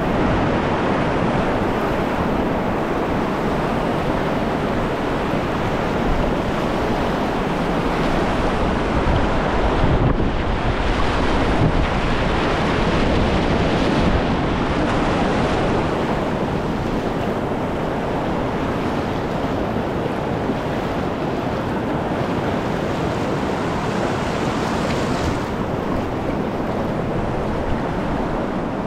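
Whitewater rapids rushing and splashing around a kayak, a steady churning water noise that swells a little around the middle, with wind buffeting the microphone.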